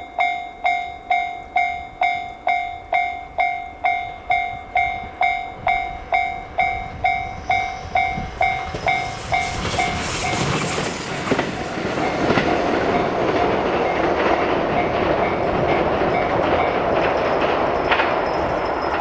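Japanese level-crossing warning bell ringing in an even series of strikes, about two and a half a second. About eight seconds in a train reaches the crossing and passes, its rumble and wheel clatter drowning the bell.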